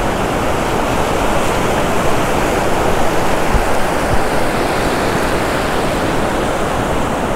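Ocean surf washing up a sandy beach close to the microphone: a steady, loud rush of breaking waves and foamy backwash.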